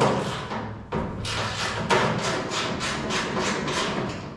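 A sharp knock, then a quick, even run of rasping strokes from a hand tool, about four a second, as a bolt is worked loose on a truck's rear roll pan.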